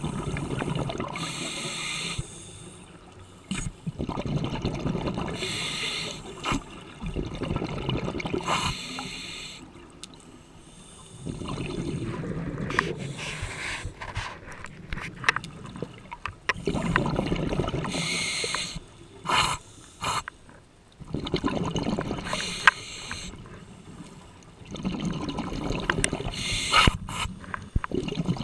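A scuba diver breathing through a regulator, heard through the camera's underwater housing. About every four to five seconds a breath goes by: a hiss on the inhale and a spell of bubbling on the exhale.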